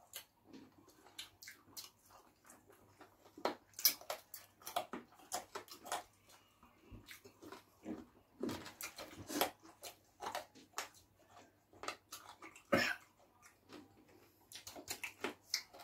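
Close-up eating sounds of someone chewing fufu and spicy turkey wing: irregular wet chewing and smacking clicks.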